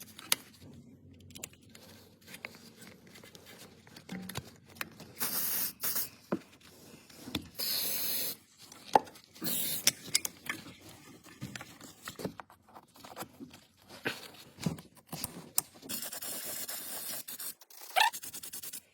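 Four short hissing bursts from an aerosol spray can, the last one longer at about two seconds, with clicks, knocks and scraping of tools and parts in between.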